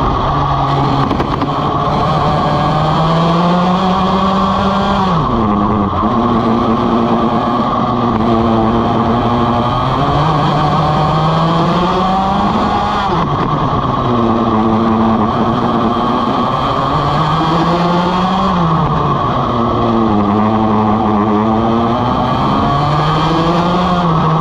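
Vortex ROK GP 125cc two-stroke kart engine at racing speed, heard onboard. Its pitch climbs steadily along each straight and drops sharply under braking for a corner, three times.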